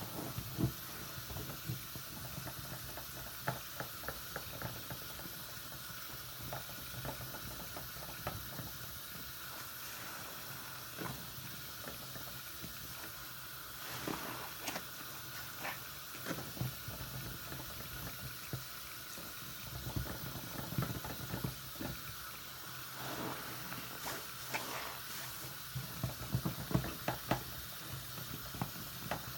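Tap water running steadily into a sink full of suds while a soapy foam sponge is squeezed and rubbed, giving bursts of wet squishing and crackling lather, most frequent in the second half.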